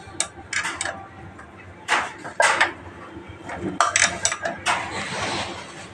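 Metal hand tools, nuts and bolts clinking and clattering against each other and the engine during cylinder head reassembly, in sharp irregular knocks with a brief noisy scraping stretch about five seconds in.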